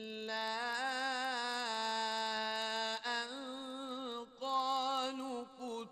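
Melodic Quran recitation by a single voice, drawing out a long, ornamented held line with wavering turns in pitch. The voice breaks off briefly about three seconds in and again a little after four seconds.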